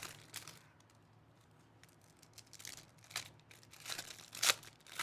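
Foil trading-card pack wrapper being torn and crinkled by hand, in short, irregular crackles, the loudest near the end.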